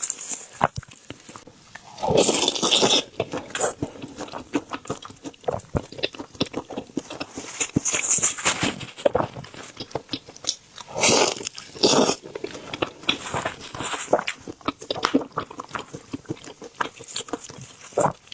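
Close-miked eating sounds: wet chewing and lip smacks on fatty fish fat, with a few louder bursts, the first about two seconds in.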